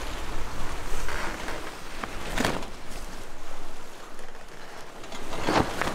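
Steady rushing wind and water noise aboard a sailboat under spinnaker, with two louder whooshes, one about two and a half seconds in and one near the end.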